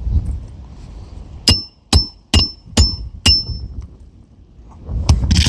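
Hammer driving a roofing nail into an asphalt shingle: five quick strikes about half a second apart, each with a short metallic ring. A rough scraping rustle follows near the end.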